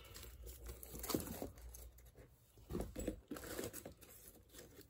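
Handling noise from a quilted leather crossbody bag with a chain strap and paper hang tags being picked up and moved about: soft rustling and crinkling with a few small clicks, busiest about a second in and again around three seconds.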